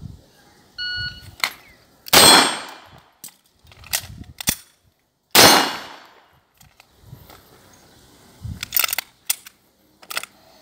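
A shot timer beeps about a second in. Two pistol shots follow, the first a little after two seconds and the second about three seconds later, each with a ringing tail. Between the shots come sharp metallic clicks of the pistol's slide being released by hand, and a few more handling clicks come near the end.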